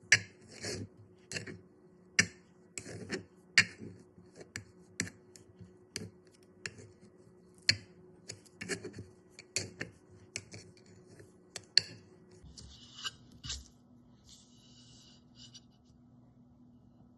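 Play dough being worked with hand tools on a hard surface: irregular sharp clicks and taps, about one or two a second, stopping about twelve seconds in. Two short scrapes follow near the end.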